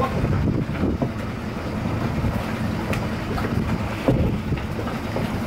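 Wind buffeting the microphone over the steady low drone of the catamaran's engines running while it is held against the crosswind, with a couple of short knocks from the dock.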